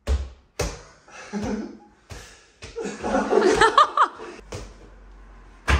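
A small ball knocking against a wall-mounted mini basketball hoop and bouncing, several separate sharp knocks, while men laugh; the laughter is loudest in the middle.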